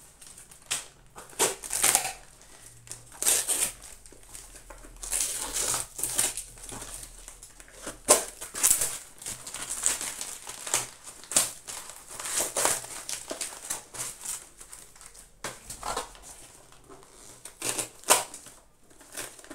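Hands unwrapping a parcel: the packaging crinkles and crumples in irregular bursts.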